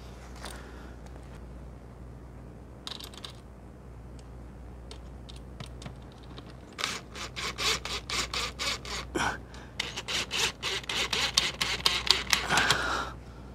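Screwdriver working a screw into a small plastic LED light box on a wall: a few soft clicks, then from about halfway through a fast, irregular run of clicks and scrapes lasting several seconds.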